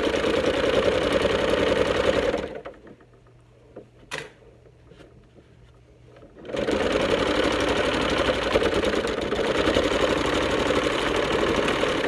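Electric home sewing machine stitching at speed, a fast steady needle rhythm. It stops after about two and a half seconds, a single click sounds in the pause, and it starts stitching again about four seconds later.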